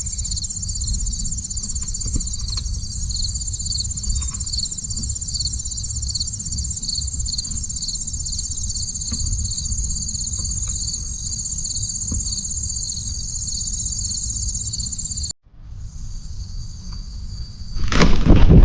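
Insects trilling steadily in a high-pitched, fast-pulsing chorus over a low rumble of wind or handling noise, briefly cut off once by an edit. A loud rush of sound comes in near the end.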